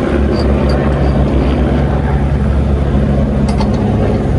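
Pickup truck engine idling steadily, with a few light metallic clinks from work on the trailer hitch.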